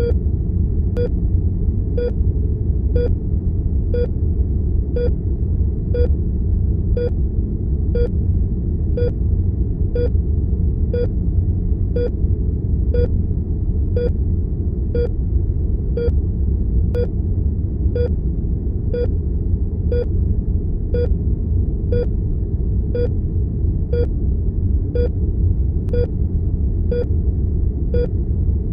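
Heart monitor beeping steadily, one short tone a little under once a second, over a loud, steady low rumble of room tone.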